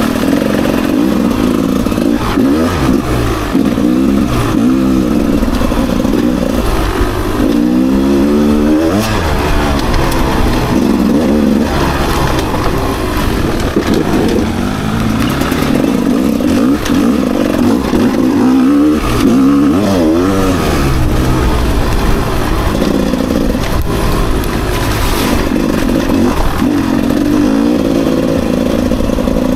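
Rieju MR300 two-stroke enduro motorcycle engine revving up and down over and over under load on a rough climb, its pitch rising and falling every second or two with a sharp rise about eight seconds in.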